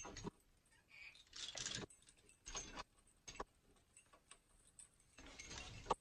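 Faint, irregular jangling, clinking and rustling of hanging metal chains and bird toys, shaken as a macaw climbs through them, in several short bursts with the longest near the end.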